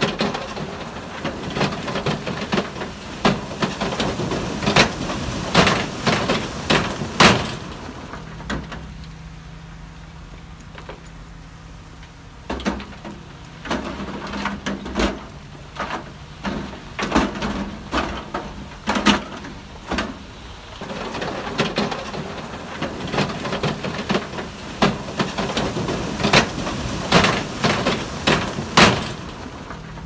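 Heavy machinery at work: two long spells of rapid, irregular knocking and clattering, with a steady low engine tone showing through in the quieter stretch between them.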